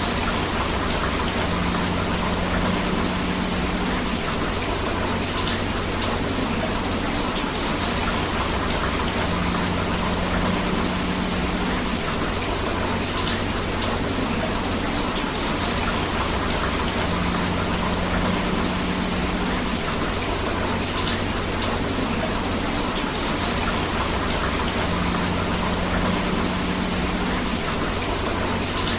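Steady rain falling together with a river's running water, a dense, even hiss with no pauses. A faint low hum comes and goes about every eight seconds.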